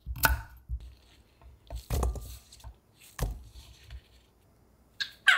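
Crinkle-cut knife slicing through a cucumber and knocking on a wooden cutting board, a few separate cuts spaced about a second apart, then a short high voice-like sound near the end.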